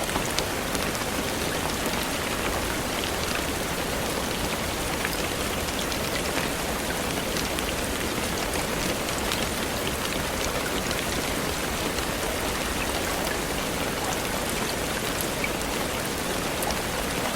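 Steady rain falling on leaves, an even hiss with many small drops pattering close by.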